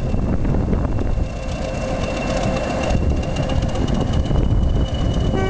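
Class 20 diesel locomotive D8188, with its English Electric eight-cylinder turbocharged diesel, running as it shunts a wagon at walking pace. A deep engine rumble carries a steady high whistle that creeps slightly up in pitch.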